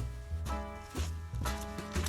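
Background music with a steady beat: sustained chords over deep bass notes that change about twice a second.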